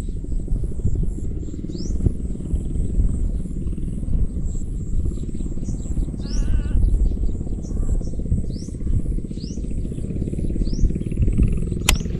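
Wind rumbling on the microphone over open paddy fields, with birds giving short rising chirps every second or two and one warbling call midway. A single sharp click comes near the end.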